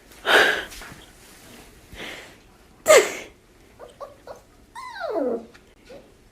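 Dog whimpering and yipping: two short breathy huffs, a sharp yip about three seconds in, a few short squeaks, then a long whine falling in pitch.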